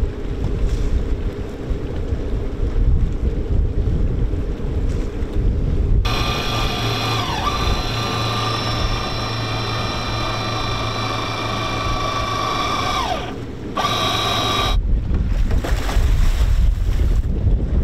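Wind buffeting the microphone over lapping water, then an electric deck winch whining steadily as it hauls in a shore line. Its pitch sags as it takes up load, once early on and again just before it stops about 13 seconds in. It runs again for about a second, and then wind and water noise take over.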